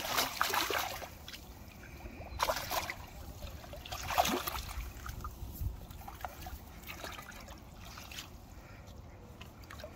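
A large mirror carp thrashing in a landing net at the water's surface: splashes at the start, about two and a half seconds in, about four seconds in, and a smaller one near seven seconds, with water trickling and lapping between.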